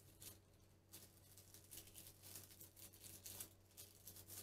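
Faint, intermittent rustling and crinkling of parchment paper being folded by hand, over a low steady hum.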